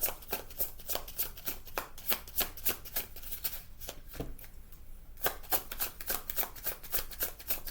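A deck of oracle cards being shuffled by hand: rapid papery flicks of card against card, many a second, thinning out for a moment near the middle.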